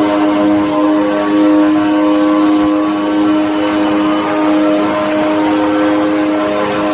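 Vehicles driving at speed, with a steady multi-pitched drone that holds unchanged and unbroken throughout.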